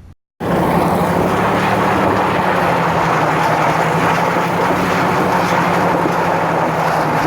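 Fox-body Mustang's 5.0 V8 running hard at steady revs, loud, with a dense rush of noise over a steady low hum. It starts abruptly after a moment of silence.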